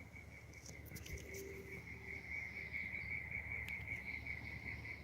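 Insects trilling in one faint, steady, high-pitched drone.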